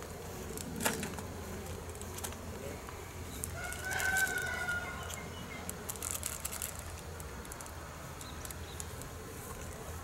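A rooster crowing once, a drawn-out call of about a second and a half starting about three and a half seconds in. A sharp knock comes about a second in.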